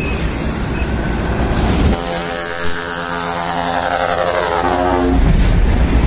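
Truck trumpet air horn (the multi-trumpet 'kapal darat' land-ship horn) blown in one long blast of about three seconds, starting about two seconds in. Truck engine and road rumble runs underneath.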